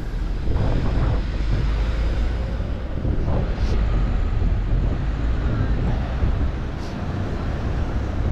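Road traffic passing on a town street, with wind rumbling on the microphone.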